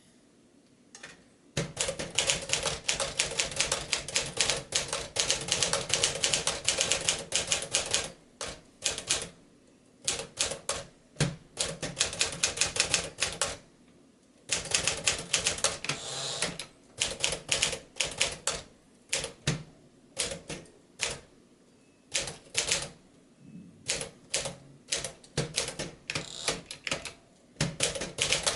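1957 Smith-Corona Clipper manual portable typewriter being typed on: quick runs of type-bar strikes against the platen, with short pauses between bursts.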